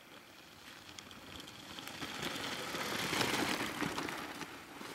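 Mountain bike riding past on a dirt and gravel trail: tyres crunching over loose stones, rising as it nears, loudest a little past three seconds in, then fading as it goes by.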